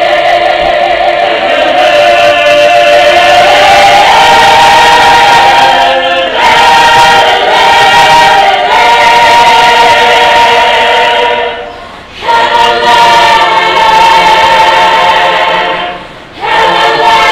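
Mixed choir singing unaccompanied, holding long sustained chords, with short pauses between phrases about 12 and 16 seconds in.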